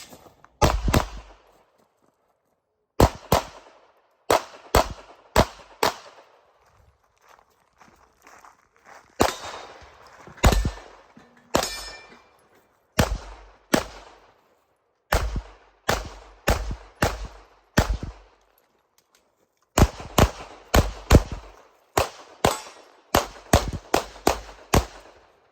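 Glock 34 9mm pistol firing a competition stage string: shots mostly in fast pairs, with pauses of about one to two seconds between groups, more than two dozen shots in all.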